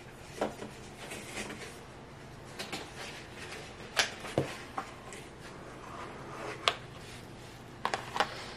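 A large kitchen knife cutting a cake in its round pan: scattered soft taps and clicks as the blade knocks and scrapes against the pan, the sharpest about four seconds in.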